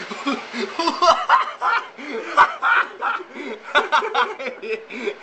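People laughing and snickering, in quick, bouncing bursts.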